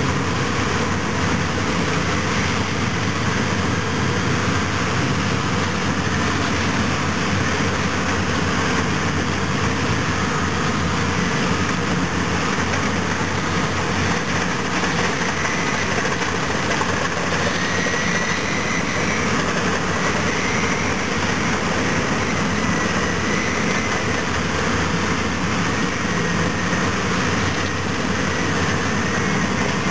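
Heavy diesel engines of a CAT D10T bulldozer and a CAT 651B scraper running hard under load as the dozer push-loads the scraper, a steady, unbroken drone. A faint wavering high whine rises over it about halfway through.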